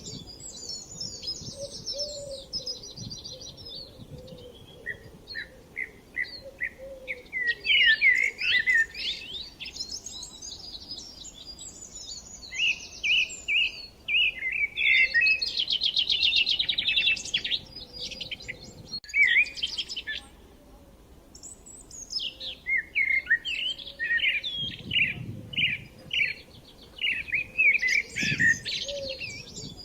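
Several woodland songbirds singing over one another, in varied chirping phrases and quick trills of repeated notes, with brief pauses between bursts.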